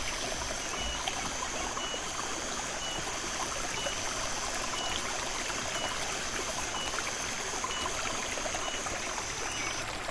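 A small stream running and trickling steadily. The water sound starts and stops abruptly.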